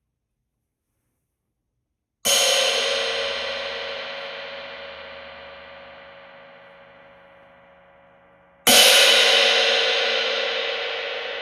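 An 18-inch Ison Traditional crash cymbal, a heavy one, struck twice about six and a half seconds apart, each crash ringing out and fading slowly. Silent before the first hit.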